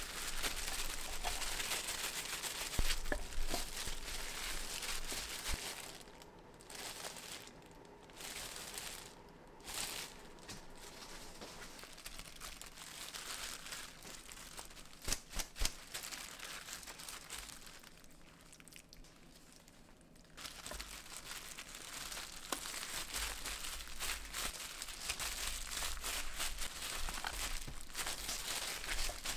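Crinkling and rustling handling noise with scattered light clicks and knocks, dropping away for a few seconds twice.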